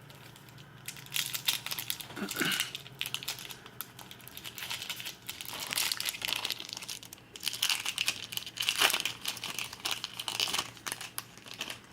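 Foil wrapper of a Pokémon booster pack crinkling in repeated bursts as it is handled and opened.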